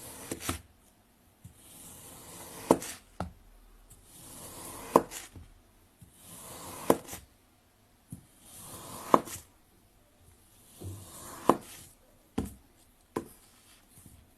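Knife slicing through kinetic sand, six times about every two seconds: each cut is a soft gritty scrape that swells for a second or so and ends in a sharp tap as the blade reaches the bottom. A few lighter taps fall between cuts.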